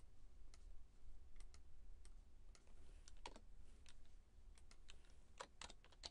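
Faint, scattered clicks of a computer keyboard and mouse, with the keystrokes coming closer together near the end.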